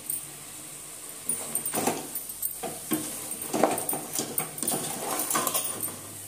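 Perforated metal ladle stirring and scraping mutton pieces and spice masala around an aluminium pot, in irregular strokes about once a second, over a faint frying sizzle. The masala is being sautéed with the meat until its raw smell cooks off, before water is added.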